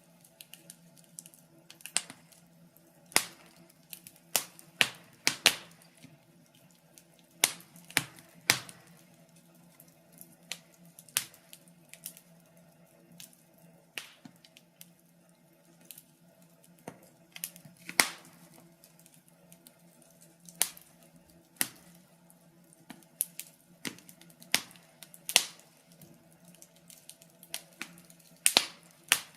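Wood fire crackling in a fireplace: irregular sharp pops and snaps, some a few seconds apart and some in quick clusters, over a faint steady low hum.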